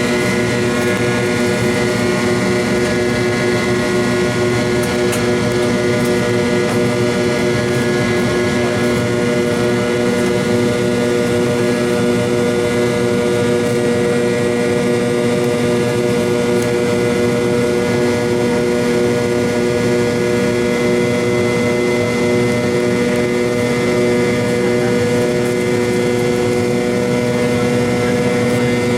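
Cabin noise of an MD-88 heard from a rear seat near its tail-mounted Pratt & Whitney JT8D low-bypass turbofans during the climb-out: a steady, loud engine drone with several held whining tones over a rushing noise.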